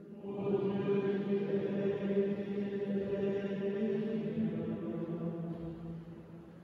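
Choir of monks singing plainchant in unison, men's voices holding long, steady notes with the reverberation of a large church. One phrase starts just after the beginning and fades out near the end.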